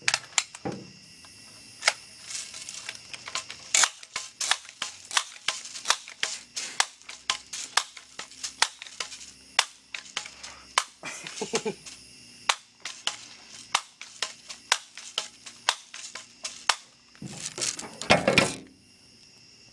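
Dozens of sharp, irregular clicks and snaps, two or three a second, over a steady high trill of night insects, with a louder rustling burst near the end.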